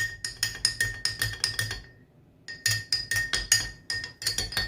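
A spoon stirring a drink in a glass cup, clinking rapidly against the glass at about five strikes a second, with a short pause about two seconds in.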